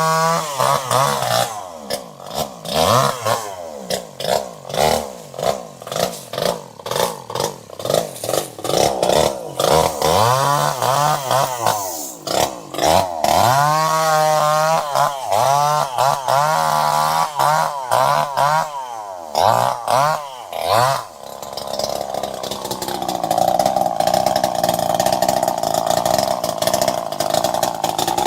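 Two-stroke chainsaw engine revved in quick repeated throttle blips, its pitch rising and falling each time, then held at a steady high speed for the last several seconds.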